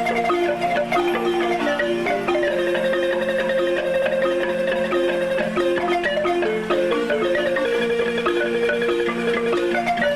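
Marimba music: a melody and chords played with mallets, the held notes sustained by rapid repeated strikes.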